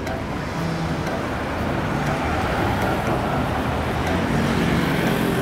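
Street traffic: a car passing on the road, its tyre and engine noise swelling about two seconds in and loudest near the end.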